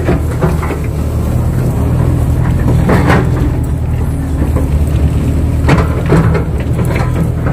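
Kato crawler excavator's diesel engine running steadily, with a few brief louder noises over it about three seconds in and again near six seconds.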